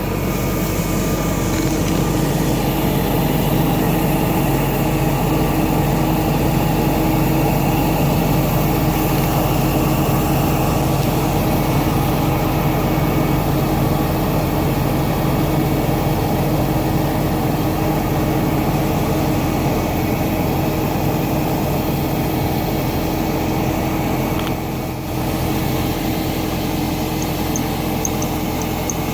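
BMW E39 540i's 4.4-litre M62TU V8 idling steadily, with a thin, steady high squeal from the accessory belt drive, the sign of a slipping belt or a failing pulley.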